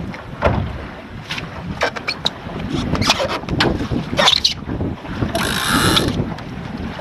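Mainsheet of a Finn dinghy being hauled in by hand: rope running through the blocks with short clicking runs from the ratchet block, then a longer run of line about five seconds in, over wind and water noise.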